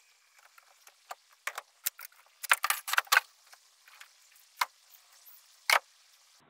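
Handling noise of a boat's battery-box panel being pulled free and lifted out among the wiring: scattered light clicks and rattles, a busy cluster about two and a half seconds in, then two sharper single knocks later on.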